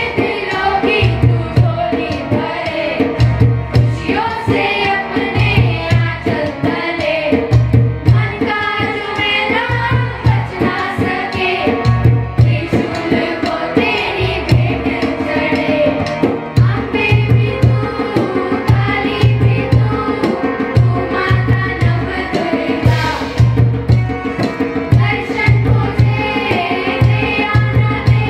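A group of children singing a song into microphones, with tabla and a repeating low drum beat as accompaniment.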